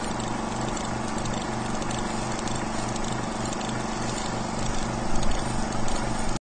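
Film projector sound effect: a steady mechanical whirr with a regular clatter and hiss. It starts with a click and cuts off abruptly near the end.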